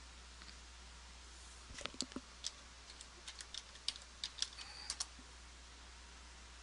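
Faint typing on a computer keyboard: about a dozen irregular keystrokes, starting about two seconds in and stopping about five seconds in, as a search term is typed.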